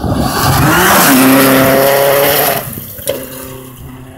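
Rally car passing at speed on a gravel stage, its engine running hard with gravel and tyre noise. The pitch falls as it goes by, then about two-thirds of the way through the sound drops away as the car drives off, with one sharp knock shortly after.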